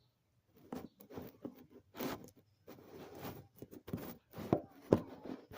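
Objects being handled: irregular clicks, knocks and rustling, with a sharp knock near the end.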